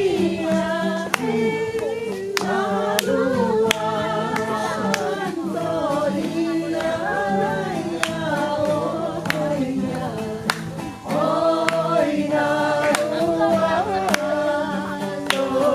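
A group of people singing together, with a low note held steady underneath and sharp clicks here and there; the singing breaks off briefly about eleven seconds in.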